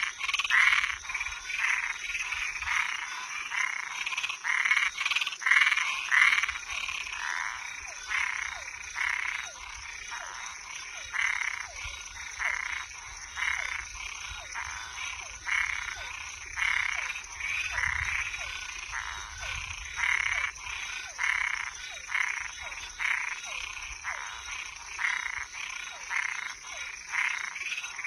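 A night chorus of frogs and tree frogs croaking, short calls repeating about once or twice a second with no break, over a steady high-pitched hum.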